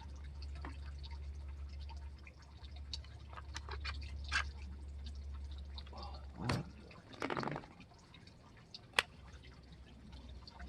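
Scattered small clicks and knocks of a Ruger PC9 9mm carbine being handled as an aluminum-cased round that has jammed in the chamber is worked at. There is a sharp single click about nine seconds in, over a low rumble that stops about seven seconds in.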